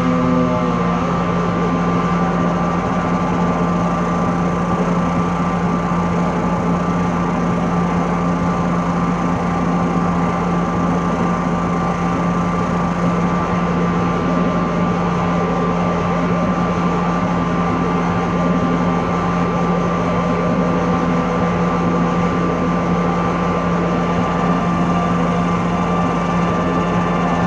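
Droning ambient live score: a low tone and a higher tone held steady under a dense, grainy, rumbling noise layer. A cluster of higher notes breaks off about half a second in.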